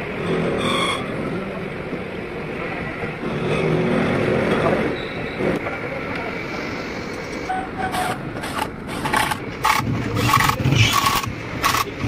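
Electric impact wrench hammering in a series of short bursts through the second half, running nuts down onto the studs of a gearbox's bearing cover, over a steady workshop background.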